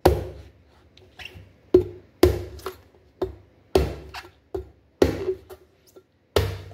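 Cleaver chopping into a young green coconut: about eight sharp whacks at uneven intervals, each with a short ringing tail.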